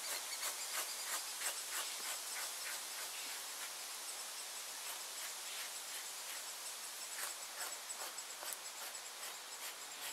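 Knife blade scraping a wet hide on a wooden surface in short repeated strokes, about three a second: fleshing, removing leftover membrane from the skin before tanning. A faint steady high hiss runs underneath.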